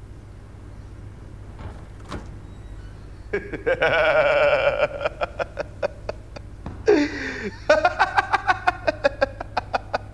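A young man laughing hard. A long, wavering laugh starts about three seconds in. From about seven seconds in comes a falling whoop, then a quick run of ha-ha pulses, about five a second.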